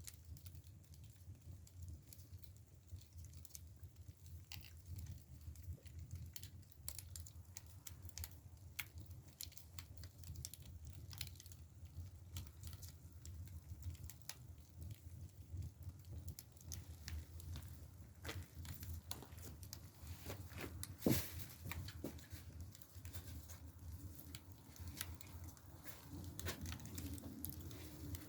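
Split, dry bamboo firewood burning in an agungi (traditional Korean clay firebox), crackling with irregular small pops over a low steady rumble, and one loud pop about two-thirds of the way through.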